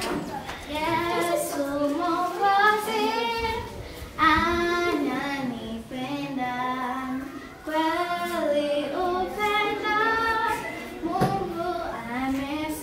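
A child's voice singing a melody in held, sung phrases, with no instruments prominent.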